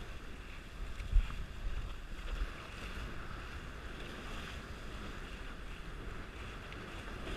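Dart 18 catamaran under sail: water rushing and hissing along the hull, with wind buffeting the microphone. There is a brief thump about a second in.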